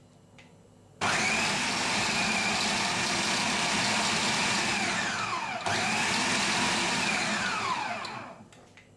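Food processor motor pulsing flour, sugar and cold butter into fine breadcrumbs for shortcrust pastry. It starts about a second in and runs steadily. It cuts out briefly past the middle and restarts, then winds down with a falling pitch near the end.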